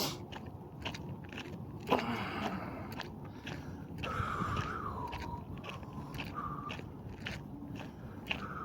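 Footsteps crunching and scraping steadily on a rocky, gravelly trail. A thin wavering high tone comes in about four seconds in and again near the end.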